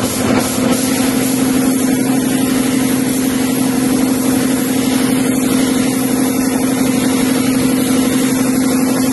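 Gravity-feed air spray gun hissing steadily as a top coat is sprayed onto a car fender, over a steady droning machine hum.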